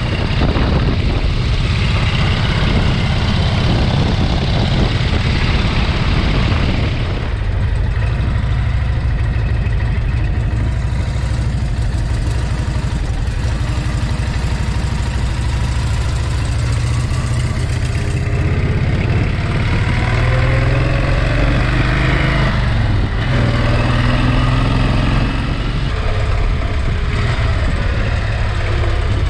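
1937 AJS 990cc V-twin motorcycle running along the road with its sidecar, heard from the sidecar. Its engine note rises and falls several times in the second half as the bike speeds up and slows.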